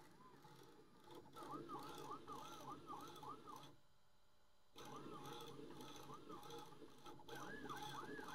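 Stepper motors of a Bambu Lab A1 Mini 3D printer whining faintly as the bed and toolhead shuttle back and forth during the motor-noise-cancellation calibration, the pitch rising and falling with each stroke about three times a second. The runs come in bursts of a couple of seconds with short silent pauses, as the calibration switches the noise cancellation on and off and steps through speeds.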